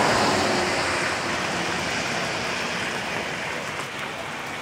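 Hail coming down hard, a dense, steady rush of hailstones striking the ground and surfaces, easing slightly toward the end.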